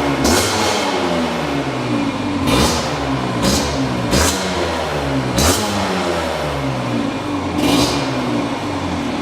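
Cagiva 125 Tamanaco's two-stroke single-cylinder engine revving, its pitch repeatedly rising and falling back, with short sharp bursts at each rev peak.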